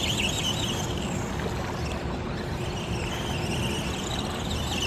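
Radio-controlled monster truck's motor whining as it drives, the whine wavering in pitch with the throttle. It fades away about a second in and comes back near the end, with a steady rushing noise in between.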